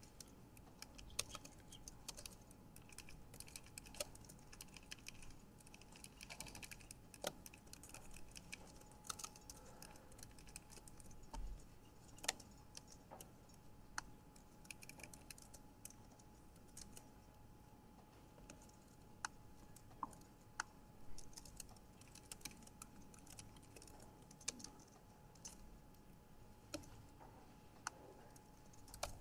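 Faint, irregular clicks of typing on a computer keyboard, with a faint steady hum underneath.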